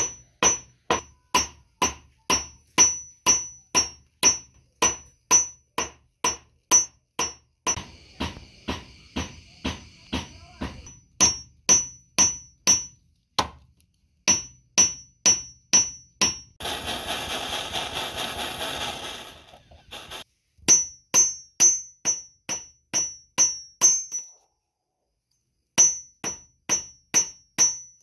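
Small hammer striking a metal ring strip on a jeweller's steel anvil: a steady run of sharp metallic blows, about two to three a second, each with a bright ring. Partway through, the blows give way to a rushing hiss for about three seconds before hammering resumes.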